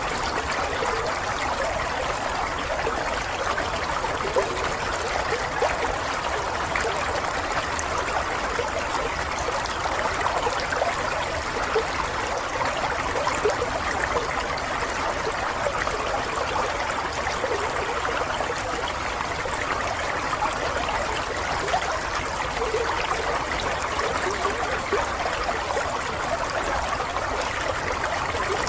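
Water flowing steadily in a small stream, trickling with many small bubbling splashes and no let-up.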